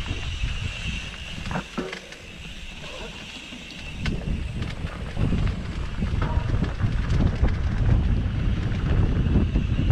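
Mountain bike riding down a dirt trail: wind rumbling on the microphone with tyre noise and scattered clicks and rattles from the bike. It eases off for a couple of seconds about two seconds in, then picks up again.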